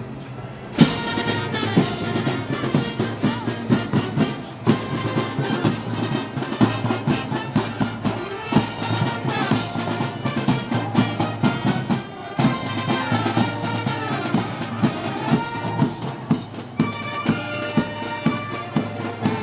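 Brass band playing Moros y Cristianos festival music with a steady drumbeat, coming in with a loud hit about a second in.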